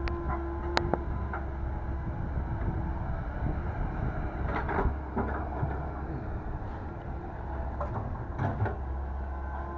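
Komatsu PC120-8 excavator's diesel engine running steadily while it digs, its steady hum joined by a few sharp knocks and clanks: about a second in, around five seconds in and near the end.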